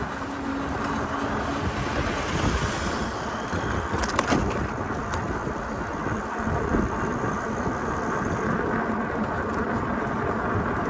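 Steady city traffic noise heard from a moving bicycle, with a brief cluster of sharp clicks about four seconds in.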